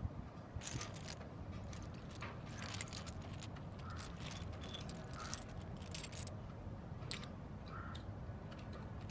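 Toy LEGO train running on plastic track out of sight, its wheels and gearing giving off irregular clicks and rattles over a steady low hum.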